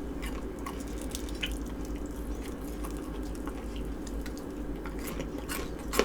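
Quiet close-up eating of chicken wings: small wet mouth clicks and smacks, a few scattered and a cluster near the end, over a steady low room hum.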